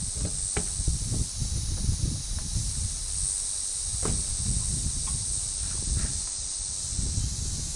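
Outdoor ambience: a steady high hiss of insects, over a low fluttering rumble of wind on the microphone, with a few faint knocks.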